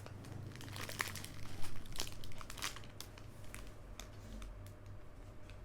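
Plastic packaging crinkling as a squishy toy in its bag is handled, a run of sharp crackles, busiest in the first half and lighter toward the end.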